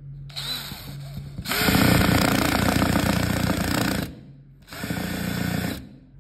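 Power drill driving a screw with a washer into a wooden board in three runs: a short one, then a longer, louder one starting about a second and a half in, then a brief final run that seats the screw.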